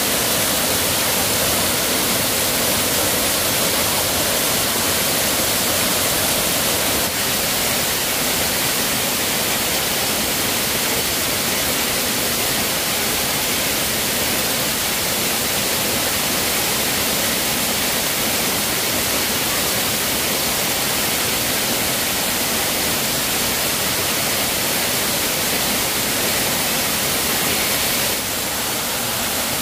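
Forest waterfall rushing steadily as water pours over a rock face.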